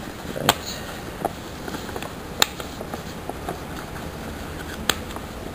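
A sheet of paper being folded and creased by hand, crackling sharply a few times over a steady faint hiss.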